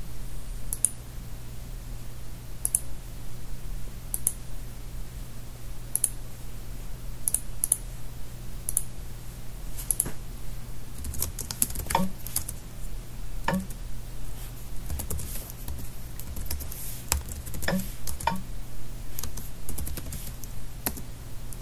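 Computer keyboard being typed on. Scattered single key clicks come first, then quicker runs of keystrokes in the second half, over a low steady hum.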